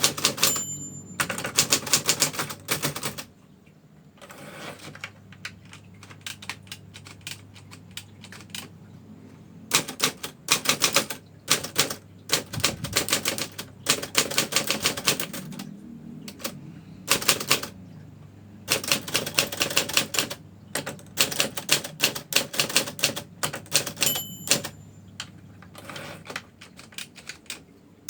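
Manual typewriter being typed on: runs of rapid key strikes with short pauses between words and lines. A brief bell-like ding sounds about a second in and again near the end, typical of the typewriter's margin bell at the end of a line.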